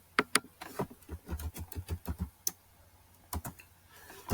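Laptop keyboard being typed on: an irregular run of key clicks, bunched in the middle with a short gap before a last few strokes.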